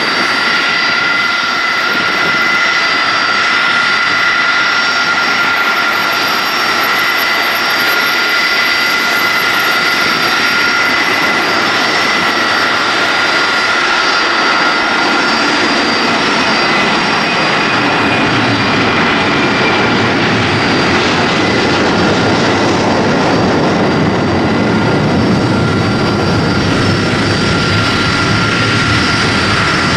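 Boeing 747SP's four jet engines whining steadily at taxi power, several high whistling tones held throughout. From about halfway, a low rumble from another jet airliner climbing out after takeoff builds underneath.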